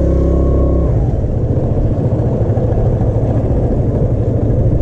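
Vespa scooter engine running steadily, then pulling away about a second in and settling into a steady low drone mixed with wind noise as the scooter rides off.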